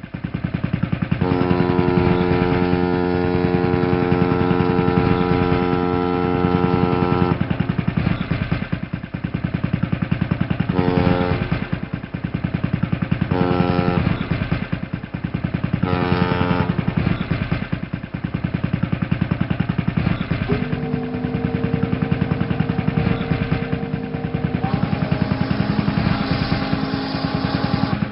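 A ship's engine runs steadily with a rapid pulsing beat. A ship's horn sounds over it: one long blast about a second in, then three short blasts, then another long blast of a different pitch in the last third.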